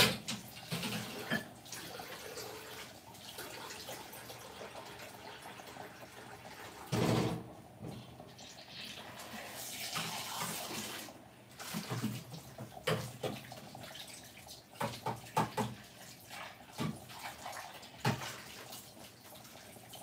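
Potatoes boiling hard in a lidded stainless-steel pot: a steady bubbling and hiss of boiling water, with a louder thump about seven seconds in and a few short knocks later.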